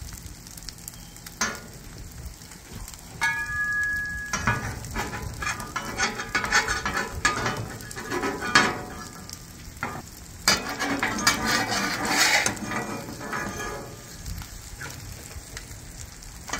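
Metal spatulas scraping and tapping across a steel flat-top griddle as an omelet is folded and pushed into shape, over a steady sizzle of egg frying on the hot plate. The scraping comes in two busy stretches with a short break in the middle.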